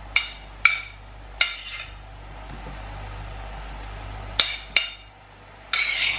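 Metal spoon clinking against a ceramic plate while chopped onion is scraped off it into a frying pan. There are sharp, ringing clinks, three in the first second and a half, two more past the middle, and another flurry near the end.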